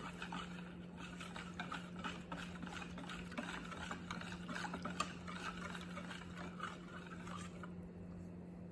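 Wire whisk stirring thin cake batter in a plastic bowl: quick light clicking and sloshing that eases off near the end. A steady low hum runs underneath.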